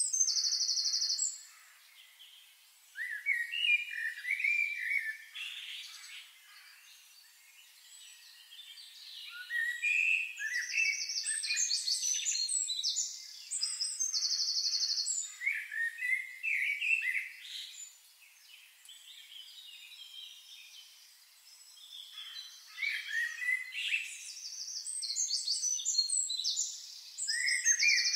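Songbirds singing: bursts of chirps and whistled phrases, with a short high buzzy trill that comes back about every 13 seconds and quieter pauses between the bursts.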